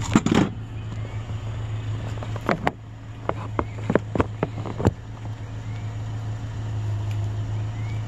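Pickup truck engine idling steadily, with a loud clatter at the start as a chair is set into the truck bed, then a string of about eight sharp knocks a few seconds in.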